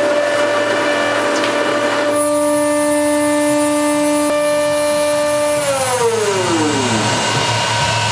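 Italian-made industrial spindle on a CNC router milling an aluminium plate: a steady whine over the rough cutting noise. A little over halfway through, the whine falls smoothly in pitch as the spindle winds down after the emergency stop is hit, its end mill's flutes packed with aluminium.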